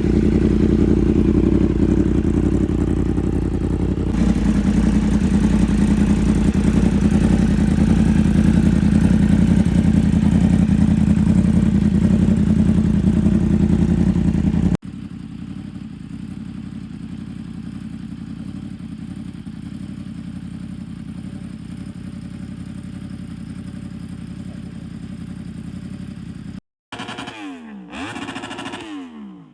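2016 Yamaha YZF-R1's crossplane inline-four running steadily at idle through an SC Project exhaust. It drops abruptly to a quieter level about halfway through, and near the end it gives a few quick revs rising and falling in pitch.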